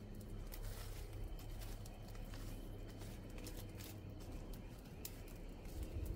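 Wood campfire burning down to embers, crackling with scattered small clicks and pops over a low steady background.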